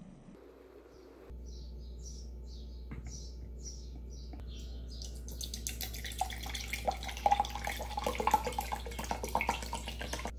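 Pomegranate juice poured from a spouted pack into a glass, a splashing trickle full of little clicks and pops, starting about halfway through. Before the pour, a bird chirps over and over, about twice a second, over a low steady hum.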